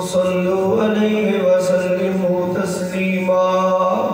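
A man's voice in a slow, melodic religious chant, holding long steady notes that shift pitch every second or so.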